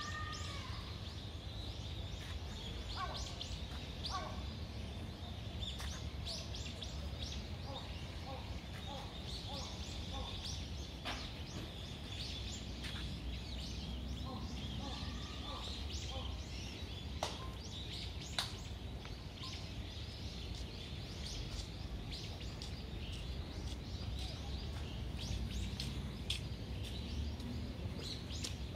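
Outdoor ambience: birds calling now and then over a steady low rumble, with a few sharp clicks.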